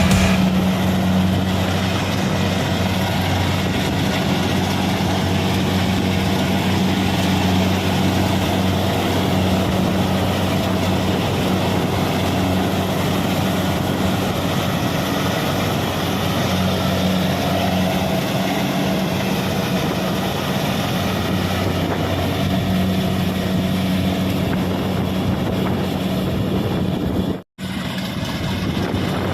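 Kubota DC-70 Plus combine harvester's diesel engine running steadily with a low drone, broken by a split-second dropout near the end.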